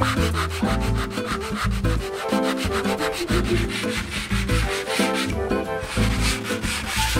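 Sandpaper rubbed back and forth by hand over a catamaran's painted fibreglass hull, over background music with a steady beat and bass line.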